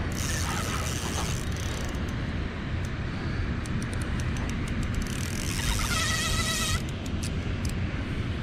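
A spinning reel being cranked against a hooked fish, with a few faint clicks from the reel, under a steady low rushing noise. About six seconds in, a buzzing tone lasts about a second.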